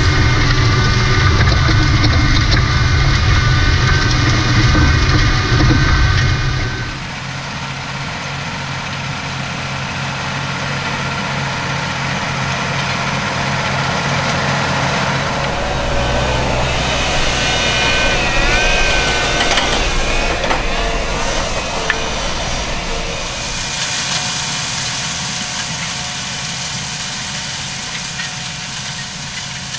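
John Deere 8370R tractor's six-cylinder diesel engine running under load while it pulls a Horsch Pronto seed drill through the soil, with the drill working alongside. The first several seconds are louder with a steady whine over the engine hum. The sound then drops suddenly and carries on as a quieter, even working noise.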